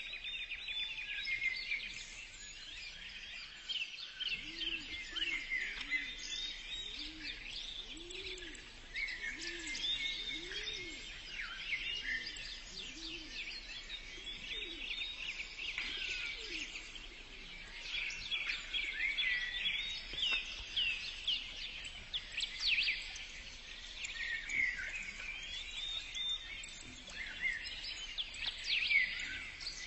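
Birdsong: many small birds chirping and twittering in quick, high notes. For several seconds early on, a low call repeats about once a second beneath them.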